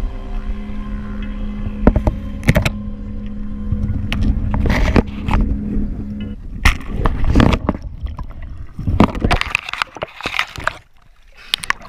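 Underwater action-camera audio: muffled water noise with scattered sharp clicks and knocks. A steady low hum runs under it and cuts off about six seconds in.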